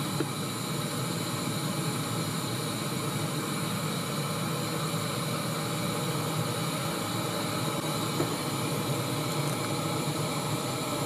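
Small canister-gas backpacking stove burning with a steady hiss under a titanium pot, the water in it bubbling as it comes up to the boil.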